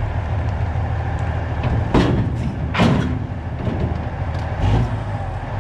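Semi truck's diesel engine idling with a steady low rumble, with two sharp metallic clunks about two and three seconds in and a softer one near the end.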